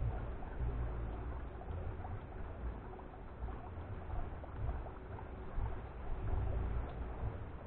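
Wind rumbling unevenly on the microphone over a light, steady splashing of water at the surface of a small tarp-lined fish pond.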